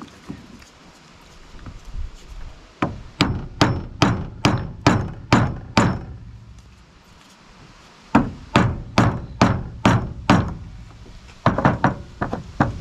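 A hammer taps on the shaft of a marine diesel's freshwater pump to drive it out through its bearings, with the pump body supported on wooden boards. The blows come in runs at two or three a second: about eight, then a pause of about two seconds, then about six more, and a few more near the end. The shaft is seized and does not seem to be moving.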